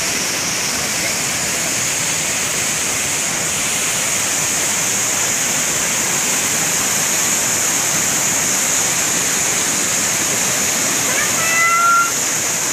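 Waterfall pouring over rocks: a steady, unbroken rush of falling water. A short high-pitched call sounds over it near the end.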